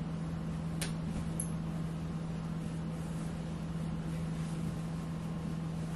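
A steady low hum under a faint hiss, with one faint click about a second in.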